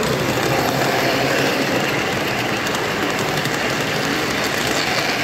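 Model train running on a club layout: a steady rumble of wheels on track, with faint regular clicks in the middle.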